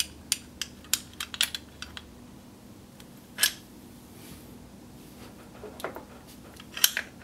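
Small metal parts of a panic latch mechanism clicking and tapping as they are handled and fitted into the case. A quick run of light clicks in the first two seconds, one louder click about three and a half seconds in, and a few more near the end.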